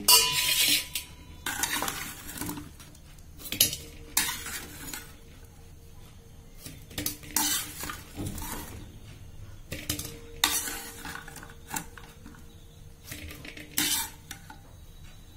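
Perforated steel skimmer scraping and clinking against a kadhai as ghee-coated litti are rolled and lifted out, in irregular strokes every second or two, over a light sizzle of ghee.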